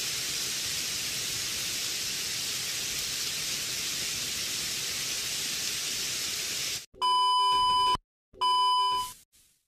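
Steady hiss of heavy rain falling. Near the end come two short, steady electronic beep tones about a second each, separated by abrupt cuts to silence.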